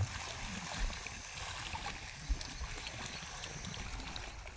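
Steady outdoor hiss of wind and choppy reservoir water against the shore, with two short low thumps about one and two seconds in.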